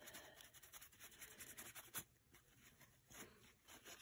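Paintbrush being wiped clean in a crumpled towel: faint rubbing and rustling, with one sharp tap about two seconds in.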